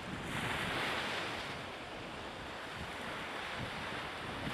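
Small harbour waves lapping against the quay, the splashing swelling about a second in and again near the end, with wind on the microphone.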